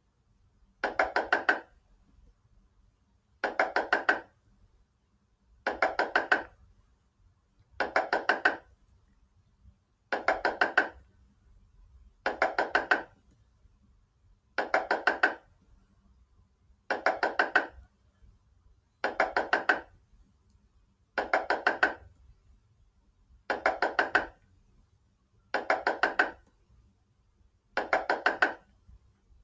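Knocking on a door: a quick run of about four or five raps, repeated at an even pace about every two seconds, thirteen times over.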